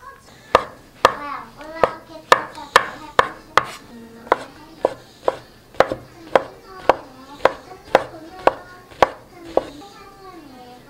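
Chef's knife chopping shiitake mushrooms on a wooden cutting board, about two strikes a second, stopping near the end.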